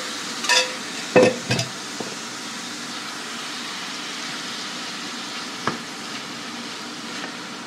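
Marinated chicken sizzling steadily as it fries in a little oil in a pan. A few sharp knocks of a utensil against the pan come in the first two seconds, and one more near six seconds.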